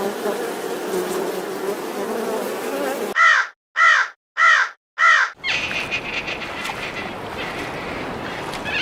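A bird calling four times in quick succession, loud calls less than a second apart, each curving in pitch. Before them comes a noisy stretch, and after them a steady hiss with a thin high whine.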